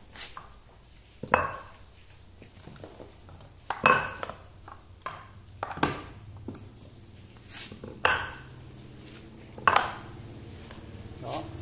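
Steel-bodied CNC spindle motors being set down and knocked against one another as they are lined up: a series of about eight sharp metallic clinks and knocks, one to two seconds apart, each ringing briefly.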